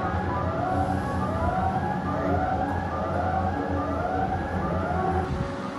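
Siren-like wailing: rising pitch sweeps that repeat and overlap about every three-quarters of a second over a steady low hum, stopping shortly before the end.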